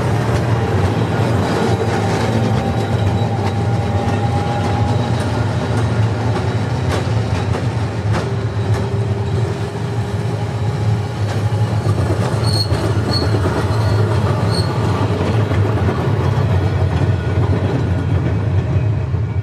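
Class 1500 "Ventotto" trams running past on a curve of street track: a steady, loud rumble of steel wheels on rails, with the wheels squealing in drawn-out tones on the curve.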